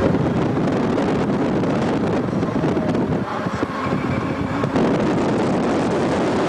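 A car driving at highway speed: steady road and wind noise, with wind rushing over the microphone.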